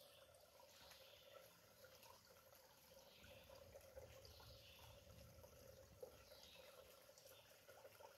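Faint trickling of a shallow stream running over rocks, with small drips.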